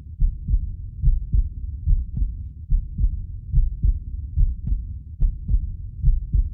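Recorded heart sounds as heard through a stethoscope at the sternal border: a steady lub-dub rhythm, a little over one heartbeat a second. It demonstrates normal physiological splitting of the second heart sound into aortic (A2) and pulmonic (P2) closure.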